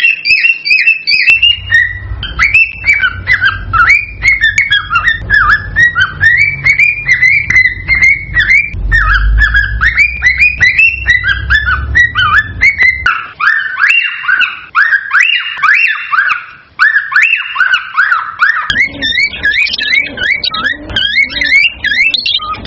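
Cockatiels chirping and whistling in rapid, excited, repeated calls, several a second without a break, the kind of agitated male song played to stimulate a pair to breed. A low rumble sits under the calls through the first half and again near the end.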